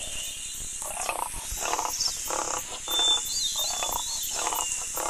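Lion roaring in a series of short grunts, about two to three a second.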